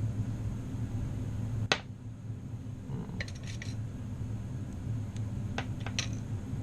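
Small metal clicks and taps from a disassembled tubular lock's parts being handled with tools: one sharp click about a quarter of the way in, a few quick light ticks in the middle, and more scattered clicks near the end, over a steady low hum.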